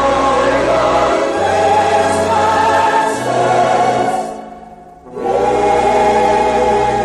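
Background music of choral singing over sustained chords with a slow-moving bass line; it fades down briefly about two-thirds of the way through, then swells back in.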